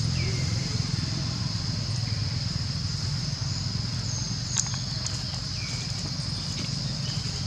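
A steady high-pitched insect drone over a low steady rumble, with light rustling and soft clicks of dry leaves as a macaque walks on them; one sharper click comes about halfway through.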